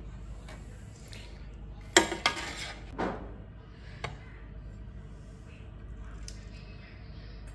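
Crockery and cutlery clattering as food is served: two sharp clinks close together about two seconds in, another about a second later with a brief ring, and a small click after that, over a low steady hum.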